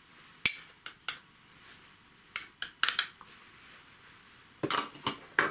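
Metal spoon clinking and scraping against small glass bowls while ground spices are spooned out into a larger bowl: a scattering of sharp clinks in a few small clusters.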